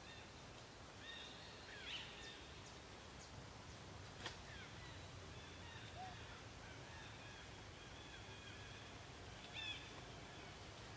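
Faint, short, high-pitched animal calls, each rising then falling in pitch, repeated throughout, with a louder cluster about two seconds in and again near the end. A single sharp click about four seconds in.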